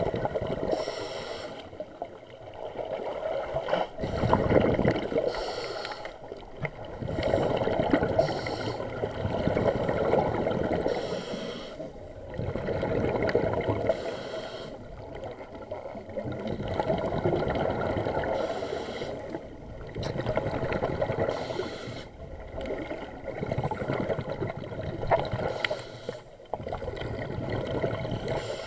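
Scuba regulator breathing heard underwater: slow cycles every three to four seconds of exhaled bubbles rumbling and gurgling past the mask, with a short hiss of the demand valve on each inhale between them.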